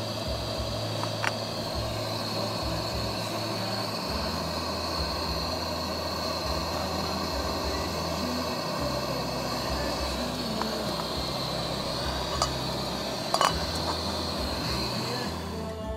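Primus gas canister stove burning steadily under a pot of drinking water, a constant hiss that stops shortly before the end. A couple of light metallic clinks of the pot and lid near the end.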